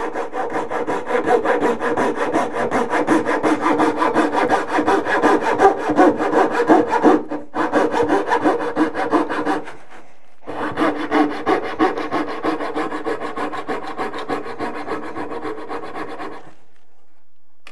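Coping saw cutting along the profile at the 45-degree end of a primed wooden baseboard to cope an inside corner, in fast, steady back-and-forth strokes. The sawing breaks off briefly twice, about seven and ten seconds in, and stops shortly before the end.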